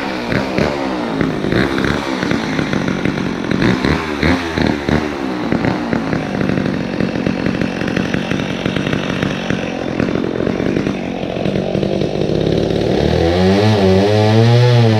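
McCulloch Mac 10-10 two-stroke chainsaw revving and cutting through a tree trunk, its pitch rising and dropping as the chain bites into the wood. About two seconds before the end it changes to a louder, steadier run.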